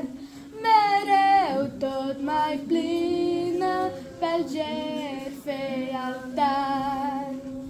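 A girl singing a Romanian Christian hymn solo, without accompaniment, in phrases of held notes that bend and slide between pitches.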